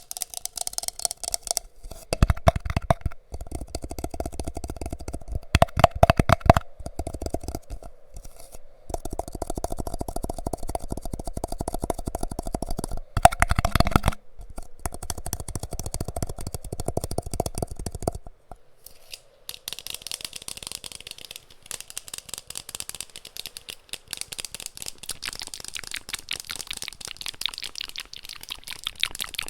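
Rapid finger tapping on objects close to the microphone, in quick dense runs. From about two seconds in, the taps are deeper and heavier, in runs with short pauses. From about twenty seconds in, they become lighter and sharper.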